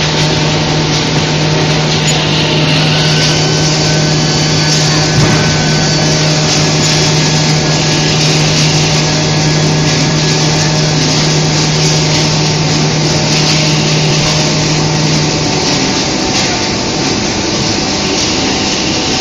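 Corrugated cardboard line with its automatic stacker running: a loud, steady machine din in which a low hum drops out about three quarters of the way through.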